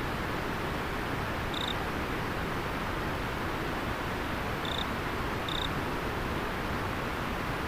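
River water flowing in a steady rush, with an insect chirping three short, high notes about two, five and five and a half seconds in.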